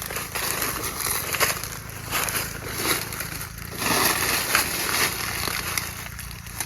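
Dry leaf litter crackling and crunching in short irregular bursts as someone moves through it, with a steady high hiss.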